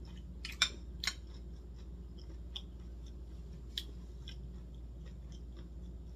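A person chewing a mouthful of cucumber and seaweed cold soup with the mouth closed: scattered small crisp clicks, a few sharper ones in the first second and another near four seconds in.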